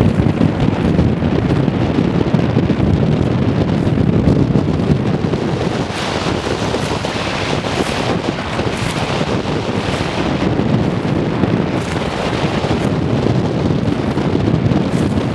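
Strong wind buffeting the microphone: a steady low rumble of noise with no breaks.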